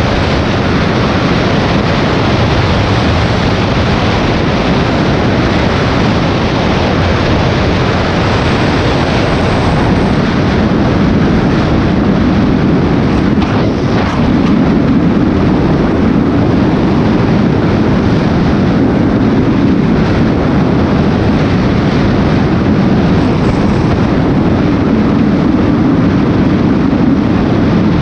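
Honda VTX cruiser motorcycle riding at a steady road speed: the V-twin engine running under wind rushing over the microphone, a little louder from about halfway through.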